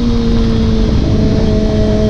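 Motorcycle engine running at a steady cruise, its pitch slowly falling as it eases off, with a heavy low wind rumble.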